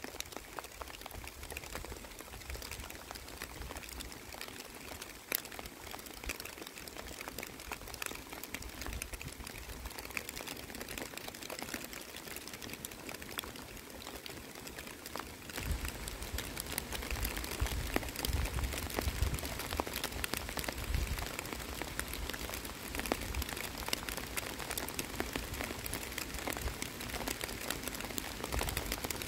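Rain falling on a pond's surface and the waterside weeds: a steady patter of many small drops. It grows louder about halfway through, with a low rumble underneath.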